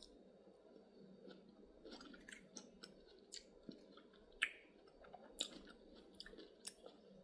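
Faint chewing of a cucumber, onion and feta salad, with soft crunches and small clicks scattered through.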